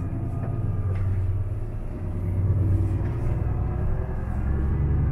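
Truck engine and road rumble heard from inside the cab while driving, a steady low drone. The rumble eases briefly about two seconds in, then picks up again.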